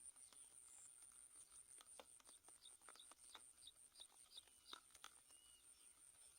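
Near silence, with a run of faint, short, high chirps, about three a second through the middle stretch, and scattered light ticks over a steady thin high whine.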